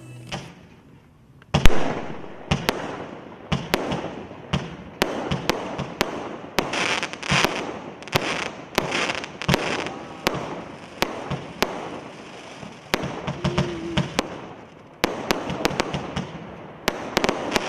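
Absolute Fireworks 'Bandicoot', a 75-shot Category 2 firework cake, firing in sequence. A loud first shot comes about a second and a half in, then the shots continue at about two a second, with a hiss of bursting effects between them.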